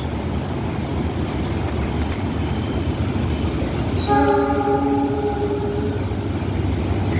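A train horn sounds one steady note for about two seconds, starting about four seconds in, over the low steady rumble of a passenger train running along the tracks.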